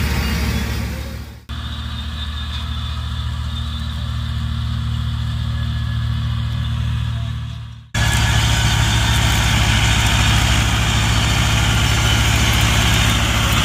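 Massey Ferguson 385 tractor's diesel engine running steadily under load, driving a PTO straw chopper whose whirring rush of chopped straw fills the high end. The sound breaks off twice. It is quieter and duller between about one and a half and eight seconds in, and louder and fuller after that.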